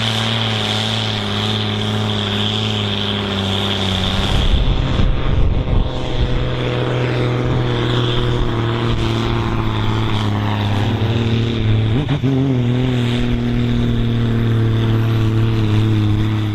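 Ford TW-25 tractor's six-cylinder turbo diesel running hard at full load on a tractor pull, a steady heavy drone with a high whine over it. The sound shifts about four seconds in and the pitch wavers briefly near twelve seconds in, as the engine's speed changes during the runs.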